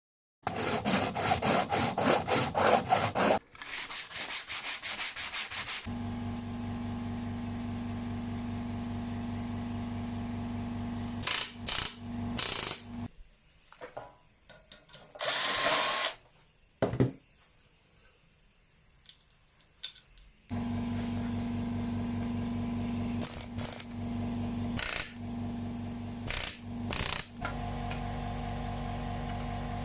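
Workshop tool sounds: a fast, even run of strokes from a power tool, then a shorter run. After that comes a steady machine hum with a low drone, broken by sharp knocks of metal tools being handled and a short loud hiss about halfway through.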